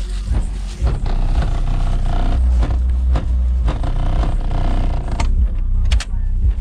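Hip hop music played loud through a 10-inch Kicker Q-Class L7 subwoofer in a ported horn enclosure, heard at the car's open trunk: a deep, steady bass dominates.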